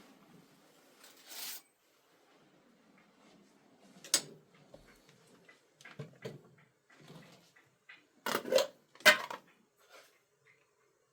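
Scattered knocks and short clatters of hard objects being handled, with a brief scraping rush about a second in and the two loudest knocks close together about eight and nine seconds in.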